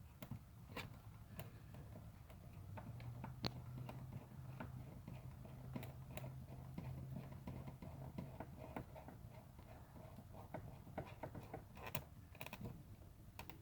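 Faint, scattered light clicks and taps of a plastic zip tie and a screw being worked into a stripped screw hole in plastic. A faint low hum runs for a few seconds in the middle.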